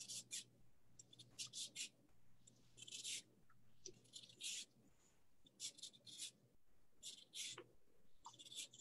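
Lemon peel being zested on a microplane grater: faint, short rasping strokes in quick groups of two or three, repeated about once a second.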